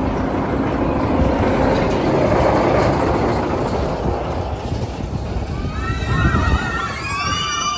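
Mine-train roller coaster car rumbling along its track. From about six seconds in, several high squeals glide up and down over the rumble.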